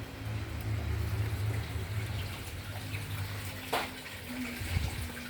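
Bonfire burning: a steady low rumble of flames with one sharp crack about three and a half seconds in.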